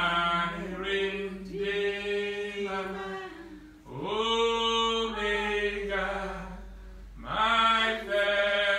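A man singing unaccompanied in slow phrases of long held notes. Each phrase slides up into its first note: at the start, about four seconds in, and again near the end.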